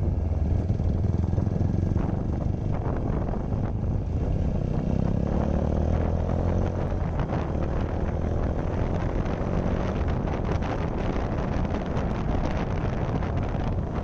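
TVS Apache RTR 160 4V's single-cylinder engine running under way, heard from the rider's position, with the revs rising about halfway through as the bike accelerates.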